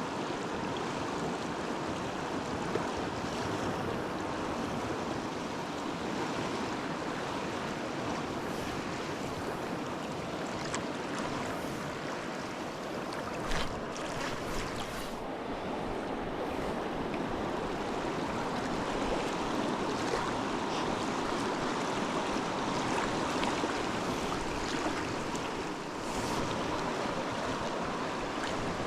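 Steady rush of flowing river water, with a few short knocks about halfway through.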